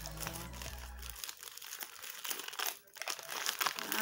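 A small printed paper packet crinkling as it is unwrapped by hand, with background music that stops about a second in.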